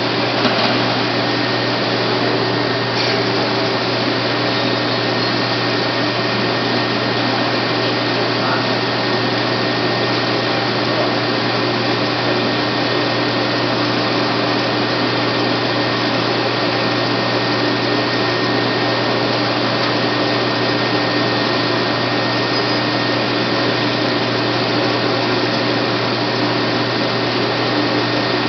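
Bolton BT0919 9" x 19" bench metal lathe running steadily: an even whirring motor-and-gear noise with a steady low hum and a thin high tone running through it.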